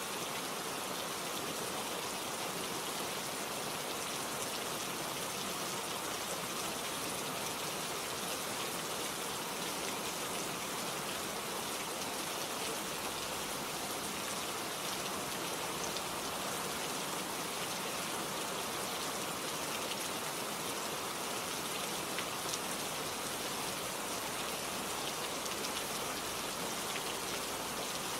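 Steady rain falling, a dense, even patter of drops on surfaces with no change in strength.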